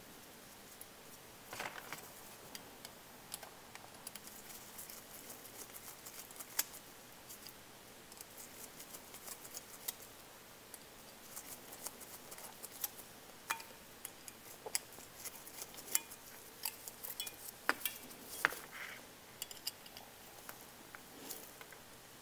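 Scattered light clicks and taps of small metal parts being handled as a boiler damper's stepper motor and metal bracket are reassembled by hand, busier in the second half.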